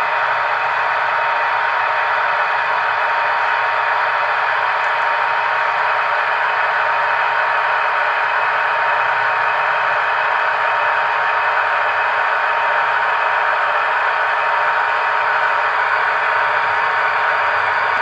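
Märklin H0 model electric locomotives running slowly on the layout: a steady whirring hum of the motors and wheels on the track, with one steady tone running through it.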